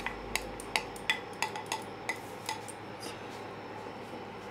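A spatula tapping and scraping against a glass bowl and a metal pan while a thick milk mixture is scraped out and stirred in. It makes a run of irregular light clacks, thinning out after about two and a half seconds.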